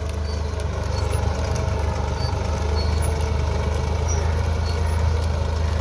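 Massey Ferguson 260 tractor's three-cylinder diesel engine running steadily under load while it pulls a zero-till seed drill through a tilled field.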